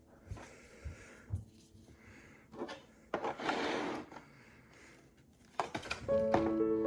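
Light knocks and clicks from handling a handheld vacuum and its attachment, with a rustling noise lasting about a second midway. Piano music comes in near the end.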